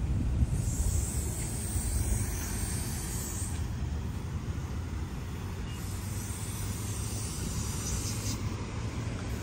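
Steady low rumble of vehicle traffic, with two stretches of higher hiss lasting a few seconds each.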